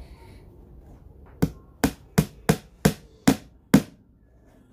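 Hammer striking a small nail into a plywood block: seven quick, sharp blows.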